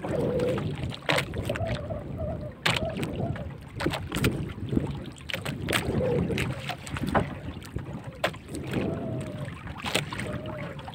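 Small wooden outrigger boat rocking on the sea, with water slapping at the hull and wind on the microphone. Irregular sharp knocks, a few seconds apart, come from the fishing line and gear being handled against the wooden boat.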